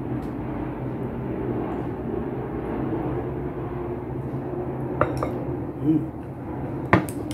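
Chopsticks clicking and scraping against a glass serving bowl as stew is moved into a ceramic bowl, with a few sharp clinks about five seconds in and again near the end, over a steady low hum.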